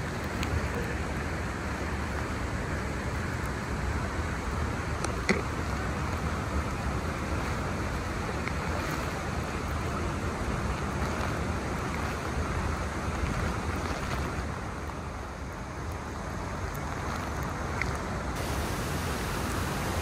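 Steady rushing of a waterfall and its spray, with a low wind rumble on the microphone. A faint knock sounds about five seconds in.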